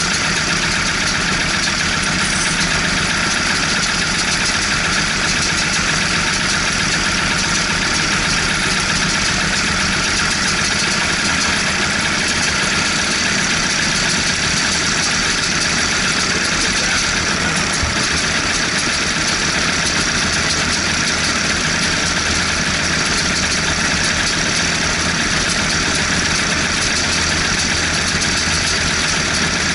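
Racing go-kart engines idling steadily on the grid, a constant loud running sound with no revving.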